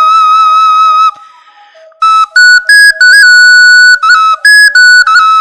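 A pre-Hispanic whistle over 1,500 years old being blown. A long, high, slightly wavering note stops about a second in, and after a short pause comes a run of short notes stepping between a few pitches.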